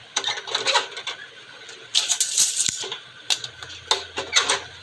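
Handling clatter of an aluminium extrusion and a steel tape measure on a saw's metal table: a run of clicks and rattles, a brighter rasping burst about two seconds in, and more clicks near the end.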